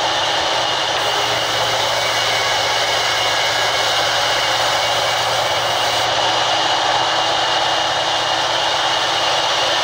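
Sawmill's vertical band saw running and ripping lengthwise through a long wooden beam as it is fed past the blade: a steady, unbroken cutting noise.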